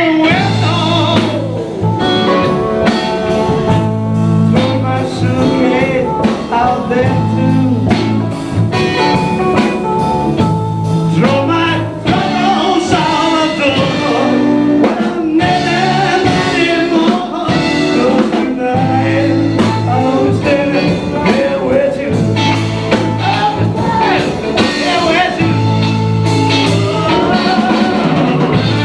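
Blues band playing live, with a singer's voice over a steady, repeating bass line.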